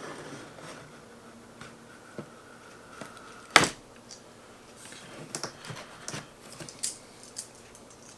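Packing tape being pulled and cut off a cardboard box: a long thin squeal, then a sharp snap about three and a half seconds in, followed by scattered clicks and rustles of the box being handled.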